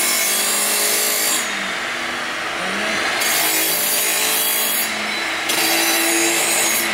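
Milwaukee abrasive chop saw running, its abrasive wheel grinding through a metal bar. A steady motor whine runs underneath, and the high hiss of the cut comes and goes three times as the wheel is pressed into the metal and eased back.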